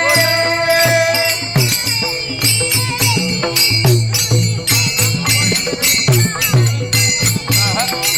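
Warkari bhajan music: a woman's sung note is held and ends about a second and a half in. Under it runs a steady rhythm of a low-pitched drum and clashing small hand cymbals.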